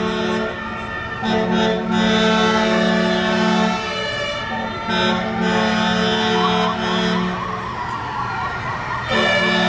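Fire engines' air horns blowing a low chord in long blasts with short breaks. From about halfway in, a siren wails, rising and then falling.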